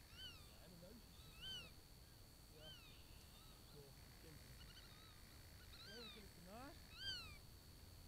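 Faint animal calls: short rising-and-falling cries repeated about once a second, over a steady faint high-pitched tone.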